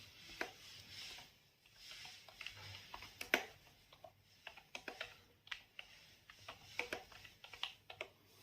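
Typing on the Offbeat Dexter typewriter-style Bluetooth keyboard: quiet, irregular key clicks, a test of whether it types after switching back to a paired device.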